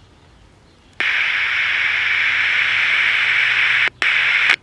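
Pocket transistor radio's small speaker hissing with loud static and no station, at full volume because its open volume control is bypassed. The hiss comes on suddenly about a second in, drops out briefly near the end, and then cuts off.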